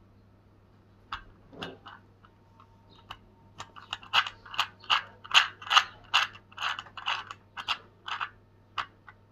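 3D-printed plastic toy clock's gears clicking as its hands are wound round to set the time. A few scattered clicks, then from a few seconds in a steady run of about two clicks a second.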